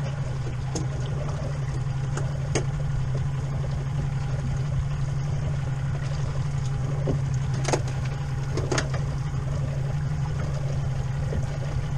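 Boat's outboard engine running steadily with a low, even hum. A few sharp knocks break in, about one and two and a half seconds in, and again near eight and nine seconds.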